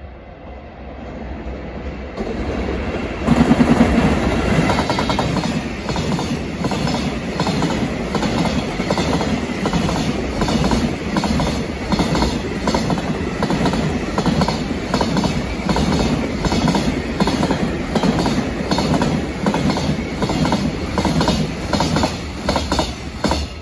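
JR Freight EF210 electric locomotive and its container freight train passing at speed. The sound jumps sharply about three seconds in as the locomotive arrives. A long string of container wagons follows, their wheels clattering over the rail joints in a steady, rapid clickety-clack.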